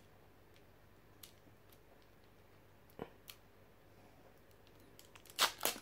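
Foil booster-pack wrapper being torn open by hand: faint small crinkles and a single click about three seconds in, then a louder burst of crinkling and tearing near the end.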